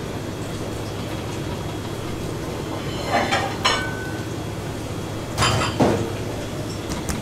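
Kitchen background with a steady low hum, broken by two short clatters, about three and five and a half seconds in, the first ending in a brief ringing clink like a utensil or dish.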